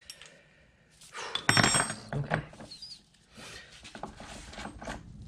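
Steel hand tools, a bearing puller and a combination wrench, clanking and clinking on a wooden workbench as they are handled and set down. About a second and a half in comes a cluster of loud clanks with a short metallic ring, followed by quieter clatter.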